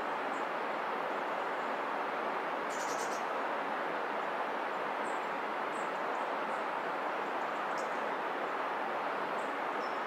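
A steady rushing hiss, with a few short high bird chirps scattered through it and a brief rattling call about three seconds in.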